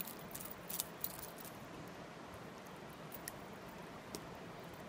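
Steady rush of shallow river water, with light clicks and taps from a trout being handled in a wooden landing net, most of them in the first second and a half.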